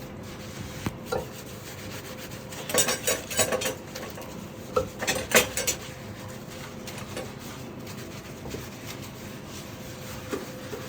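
A washbasin scrubbed by hand, rubbed hard directly on a stubborn spot, in two spells of quick scrubbing strokes about three and five seconds in, with a few light knocks against the basin.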